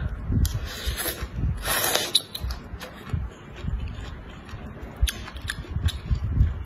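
Close-miked eating: noodles slurped up in two hissing sucks in the first two seconds, then soft chewing, with a few sharp clicks near the end from chopsticks lifting more noodles out of a metal pot.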